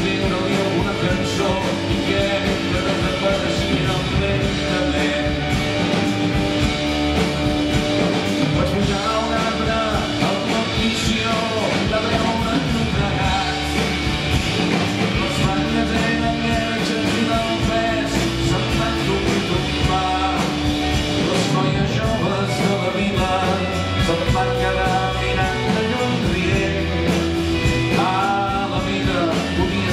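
Live pop-rock band playing through a concert hall's PA: electric guitars, bass and drums, with a sung vocal line.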